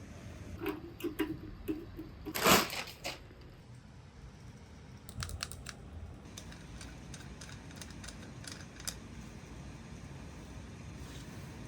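Packaging and parts being handled during an unboxing: a string of light clicks and taps, with one short, louder rustle about two and a half seconds in, over a steady low background hum.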